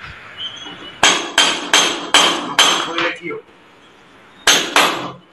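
Hammer blows with a metallic ring: a quick run of five or six strikes, a pause, then two more in close succession.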